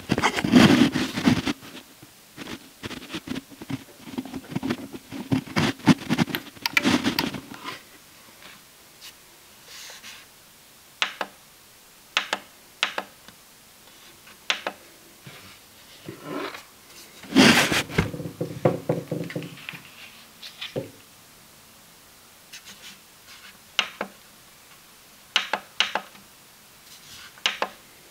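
Handling noise as the power cord goes in, then sharp clicks at irregular intervals from the Intel NUC 9 Extreme's internal power supply, with a longer rattling stretch partway through. The clicking with no start-up is the sign of a defective power supply.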